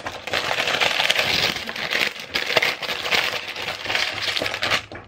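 Tissue paper being pulled open by hand, rustling and crinkling in a dense crackle that stops suddenly near the end.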